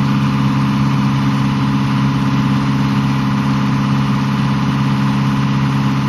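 A sailboat's inboard engine running steadily, giving a constant low hum whose pitch does not change.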